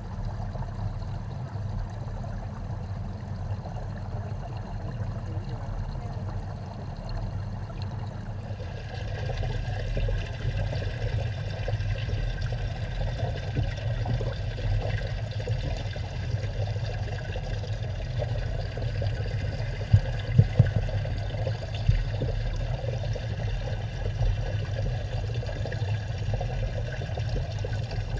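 Steady bubbling and rushing of water from a fish tank's bubbling inlet pipe, heard from under the water. It gets brighter and a little louder about eight seconds in, and a few sharp knocks come about twenty seconds in.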